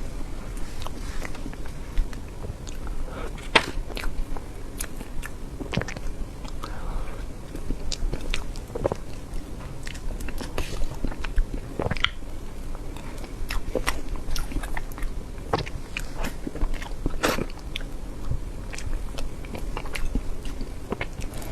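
Close-miked eating of soft cream cake: wet mouth clicks and smacks of biting and chewing, coming irregularly.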